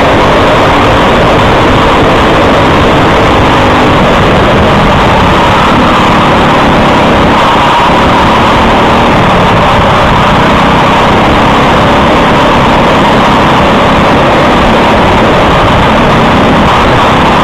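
Briggs & Stratton LO206 single-cylinder four-stroke kart engine running at racing speed, heard from onboard the kart, loud and steady throughout.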